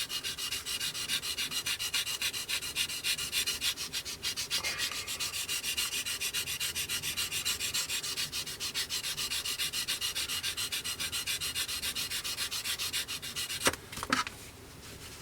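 Medium-grade sanding sponge rubbed in quick back-and-forth strokes over hardened filler on a plastic model's wing leading edge, a fine scratchy sound at about six or seven strokes a second. The strokes stop near the end, followed by two light knocks.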